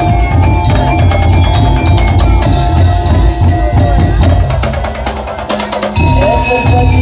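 Daul percussion ensemble playing loud music on drums and bass drums with a melody over them. A rapid drum fill runs through the middle, the low end thins out briefly, and the full band comes back in about six seconds in.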